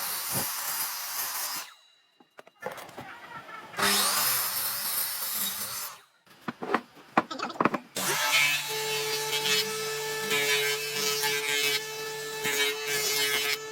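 Power tool working wood in two short bursts, with a few knocks in between, then a longer steady run from about eight seconds in.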